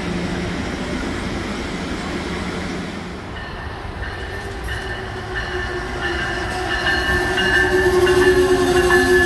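Passenger rail cars rolling past on the rails for the first three seconds. Then an Amtrak Siemens ACS-64 electric locomotive hauling passenger cars approaches and runs past, its steady electrical tones at several pitches growing louder toward the end.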